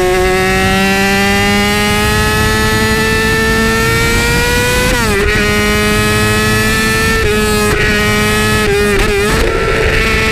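A 2008 Yamaha R6's 600 cc inline-four, running through an Akrapovic megaphone exhaust at high revs. Its pitch climbs steadily for about five seconds, drops sharply with a quick upshift, then holds steady with a few brief throttle blips near the end, over wind rush.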